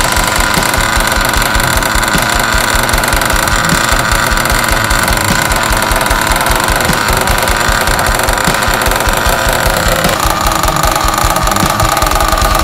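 Hobao Hyper Truggy SS's .30 nitro engine idling steadily with a fast, even beat during a stationary break-in run on a brand-new engine. Its pitch steps up slightly about ten seconds in.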